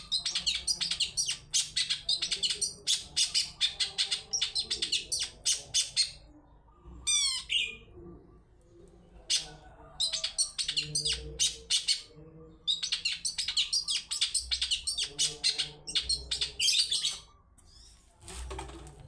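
Long-tailed shrike (cendet) singing in quick runs of sharp, chattering high notes, broken by short pauses, with a brief sliding whistled phrase about seven seconds in.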